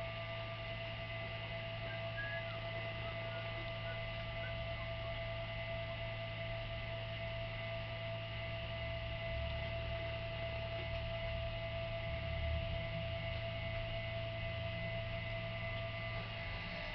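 A steady hum made of several constant tones, unchanging throughout.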